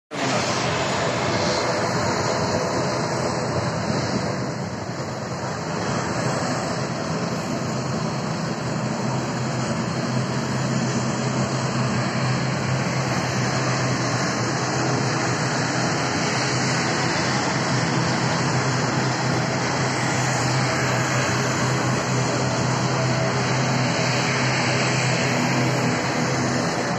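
Turboprop airliner engines running, a steady loud drone with a low propeller hum that is strongest from about ten seconds in.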